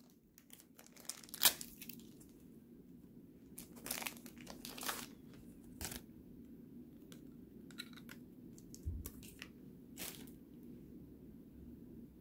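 Faint, scattered rustling and crinkling of trading cards and their wrapping being handled by hand, with a sharper tap about a second and a half in and a few softer taps and rustles after it.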